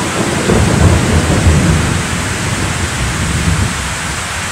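Heavy rain falling steadily, with a low rumble that swells about half a second in and fades after about two seconds.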